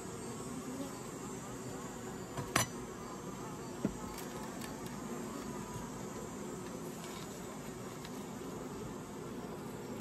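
Honeybees buzzing around an open hive, a steady hum. Two short, sharp clicks break it, about two and a half and four seconds in.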